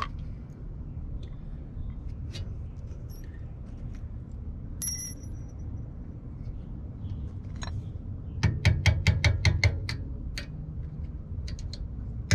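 Small hammer tapping a drill bit used as a punch to drive the brake pad retaining pin out of a Mercedes C230 rear brake caliper. A few separate metallic clinks, one of them ringing, then a quick run of light taps about two-thirds of the way in and another near the end.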